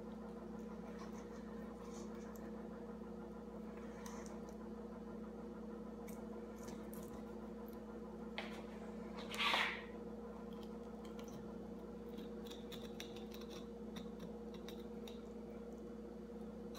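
Fillet knife working through a largemouth bass: faint wet cuts and small clicks over a steady hum, with one louder, brief rasp of the blade about nine and a half seconds in.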